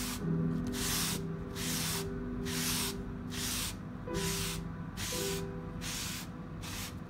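Fingers rubbing powdered mineral pigment back and forth into scored paper: a rhythmic scratchy swishing, about two strokes a second. Soft sustained music plays underneath.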